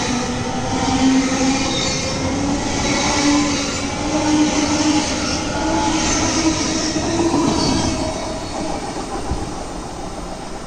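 A train moving through the station, with rumbling wheel-on-rail noise and a tone that slowly rises in pitch; the sound eases off near the end.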